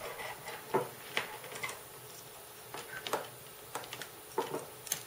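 Irregular small clicks and taps, about a dozen, from wires and clips being handled while the speaker leads are connected to a small amplifier board.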